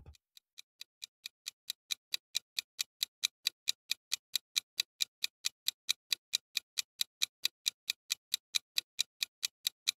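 Ticking sound effect marking a quiz countdown timer: even ticks, about four a second, fading in over the first second and then steady.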